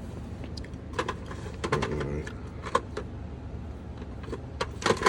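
Scattered light clicks and metallic clinks of pet-store goods being handled, such as collars and leashes with metal clips, over a steady low store hum.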